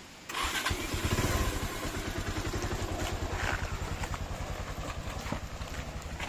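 Motorcycle engine starting about a third of a second in, revving briefly, then settling to a steady idle.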